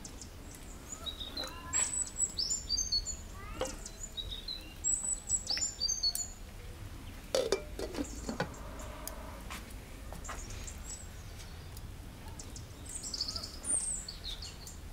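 Small birds chirping in short, high-pitched phrases several times, with a brief metallic clink about halfway through as a glass lid is set on an enamel cooking pot.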